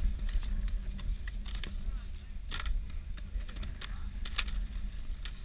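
Irregular clicks and scrapes of skis and ski poles on hard-packed snow, the sharpest about two and a half seconds in and again near four and a half, over a steady low rumble on the head-mounted camera's microphone.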